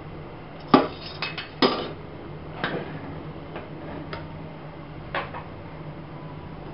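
Metal spoon and skimmer knocking and clinking against the side of an aluminium pot while stirring and scooping boiling rice. There are several sharp knocks in the first two seconds, then a few fainter ones spread over the next three.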